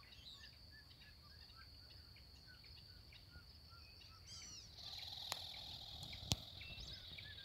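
Faint outdoor ambience with birds calling: short soft chirps repeating about twice a second over a steady high-pitched tone, and a few higher sweeping calls a little past the middle. Near the end the hiss rises and two sharp clicks sound.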